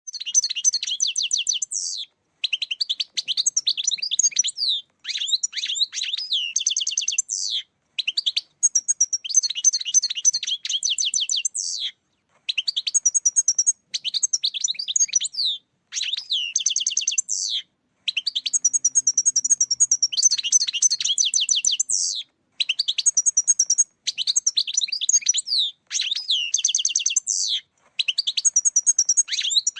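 European goldfinch song: fast, tinkling twittering phrases, each a couple of seconds long, broken by short, clean gaps of silence.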